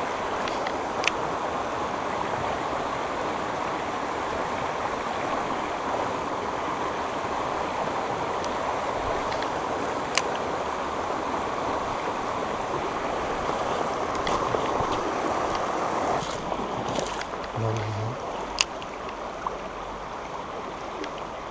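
Shallow stream running over stones and gravel: a steady noise of rushing water, with a few faint sharp clicks. The rushing eases a little about sixteen seconds in.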